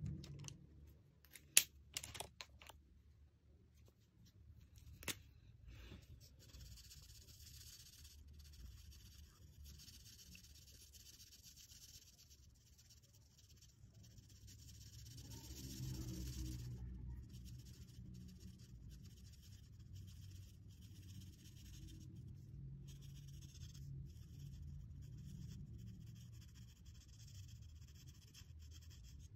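A Touch TongNian twin-tip marker scratching across paper in quick back-and-forth colouring strokes: a faint, dry hiss that comes and goes in short stretches. A few sharp clicks come near the start.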